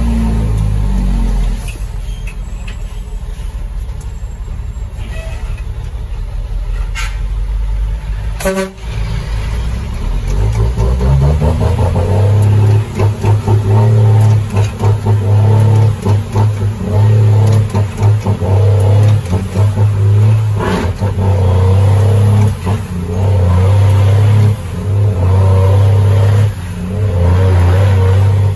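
Cummins M11 Select Plus straight-six diesel heard from inside the truck's cab, easing off at first, then climbing and pulling loud from about twelve seconds in, the note dropping briefly several times as the driver shifts the 18-speed gearbox. A short horn toot about nine seconds in.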